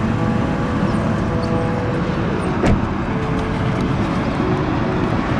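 Steady rumble of freeway traffic, with a single short thump about halfway through.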